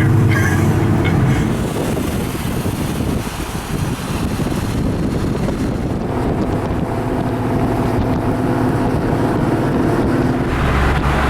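Car engines running at low revs in slow traffic, with wind buffeting the microphone; a louder, deeper engine rumble comes in near the end.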